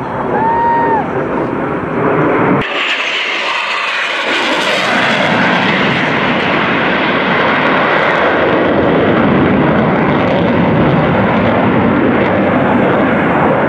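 Military jet making a low pass, heard as a loud rushing roar. The roar comes in abruptly about two and a half seconds in and then holds steady.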